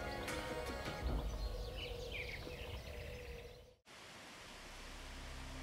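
Outdoor ambience with a few bird chirps, fading down and cutting off suddenly about four seconds in. A low steady hum then rises slowly.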